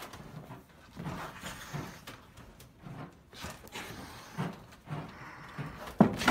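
Short, uneven breathy puffs of animal sniffing and breathing, a few a second, as a sheep noses at a cat, then a sudden loud knock near the end.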